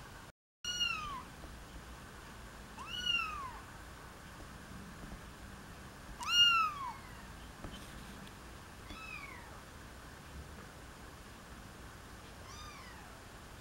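A four-week-old kitten meowing: five thin, high meows about three seconds apart, each rising and then falling in pitch, the one about six seconds in the loudest.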